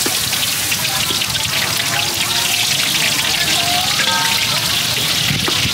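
Food frying in hot oil: a steady, crackling sizzle.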